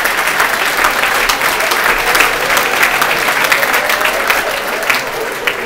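Live theatre audience applauding with dense, steady clapping that eases slightly near the end.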